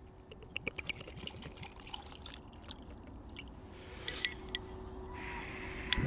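Water being poured into a camping stove's cooking pot, a soft trickle that builds slowly, after a few light clicks of handling.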